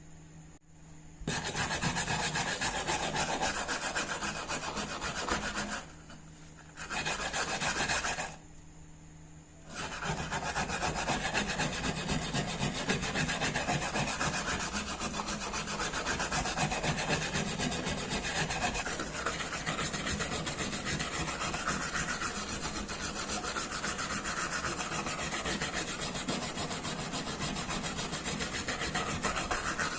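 Rapid abrasive rubbing on the rusty vegetable slicer, sanding or scraping away rust, in three spells with two short pauses, about 6 and 9 seconds in.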